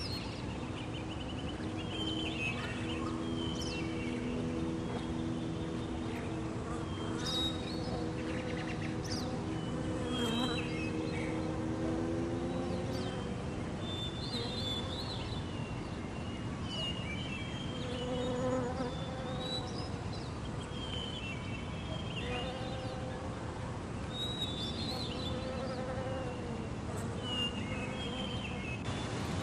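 Outdoor ambience: scattered short, high bird chirps over a steady low droning hum that wavers in pitch around the middle and then fades.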